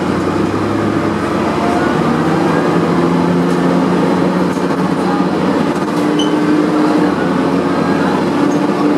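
Dennis Dart single-deck bus engine and drivetrain, heard from inside the saloon, pulling the bus along. The engine note climbs steadily as the bus gathers speed, then climbs again in the second half.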